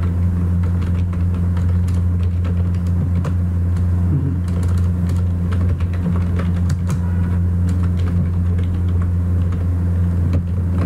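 Computer keyboard typing: scattered, irregular key clicks over a loud, steady low hum.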